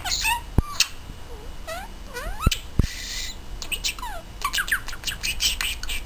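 Budgerigar chattering in quick rising chirps, clicks and squawky warbles, mimicking the Czech phrase "dej mi pusu" ("give me a kiss"), with a few sharp taps.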